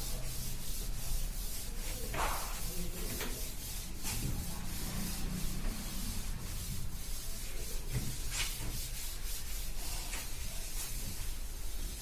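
Chalk being wiped off a blackboard with a duster: quick repeated rubbing strokes across the board.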